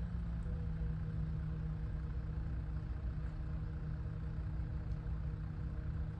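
Electric pottery wheel running at a steady speed: a low, even motor hum with a constant tone.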